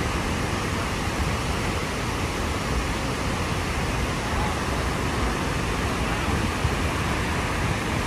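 Rainbow Falls running in flood after heavy rain: a steady, even rush of falling and churning water with a deep low rumble.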